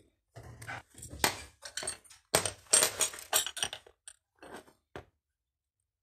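Leather belt strap and metal buckle frame being handled: a quick string of light clicks and rustles that stops near the end.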